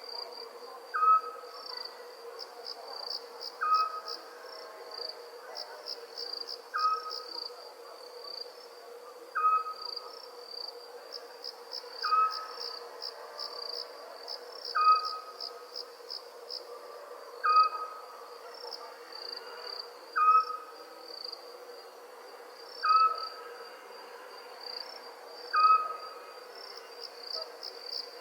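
Night chorus of crickets chirping in rapid pulsing trills, with a short single-note animal call repeating steadily about every three seconds as the loudest sound, over a faint steady low hum.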